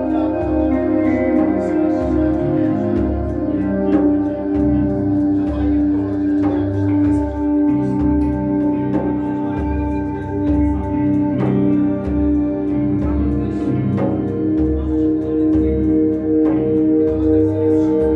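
Live ambient jam-session music: sustained, layered chords that change about eight and fourteen seconds in, over a low bass pulsing roughly once a second.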